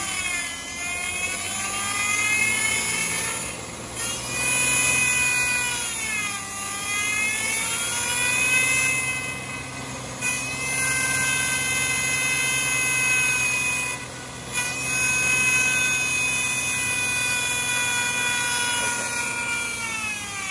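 Car engine revved up and held high several times, dipping back between revs, with the power steering pump whining loudly over it as it spins faster. The whine comes from air in the power steering lines after a low-fluid leak, which the high revs are meant to purge.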